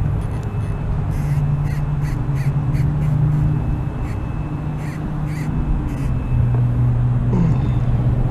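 A crow cawing: a run of short calls through the first few seconds and a few more about five seconds in, over a steady low hum.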